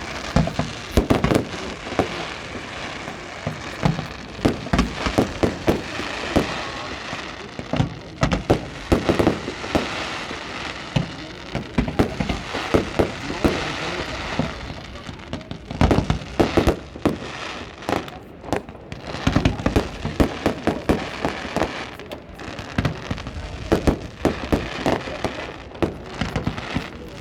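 Fireworks display going off: many shells bursting in irregular clusters of sharp bangs, with crackling effects in between.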